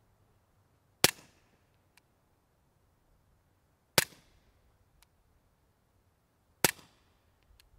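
Three suppressed shots from a Walther P22 .22 LR pistol fitted with a TBA PeaceMaker aluminum K-baffle rimfire suppressor, firing CCI ammunition: each a sharp crack with a short tail, about three seconds apart. The shots meter at roughly 116 to 121 dB.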